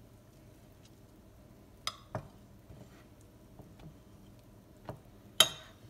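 Metal tongs clicking against a glass baking dish a few times while a cube steak is turned in flour, with the sharpest, loudest click near the end.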